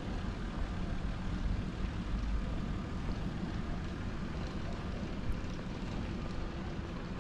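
City square ambience: a steady low rumble of distant traffic, with one short tick about five seconds in.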